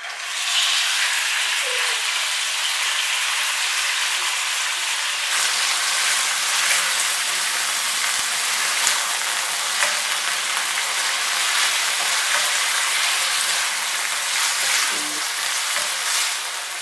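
Diced chicken breast frying in hot olive oil in a pot: a loud, steady sizzle that sets in sharply about half a second in as the chicken meets the oil, with a few light clicks.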